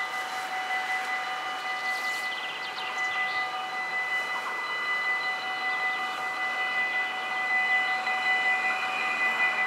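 Mechanical bells of a Dutch level crossing ringing continuously and rapidly, giving steady ringing tones while the barriers are down. A rushing noise from the approaching train grows louder over the last few seconds.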